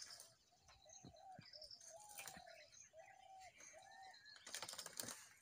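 Faint forest birdsong: repeated short high chirps over a series of short, level, lower-pitched calls, with a few sharp cracks about four and a half to five seconds in.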